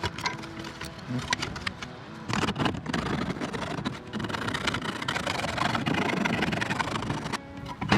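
Hand file rasping along the cut plastic edges of a console lid, in steady scraping strokes that start about two seconds in after a few light knocks.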